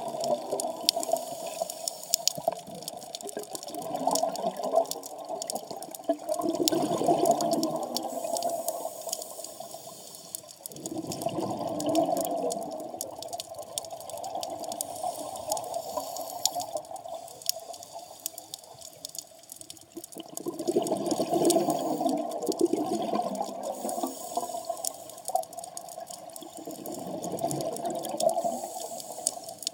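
A scuba diver's exhaled bubbles gurgling out of the regulator underwater, in rushing bursts of a few seconds that come every several seconds with the breathing. A constant crackle of fine clicks runs underneath.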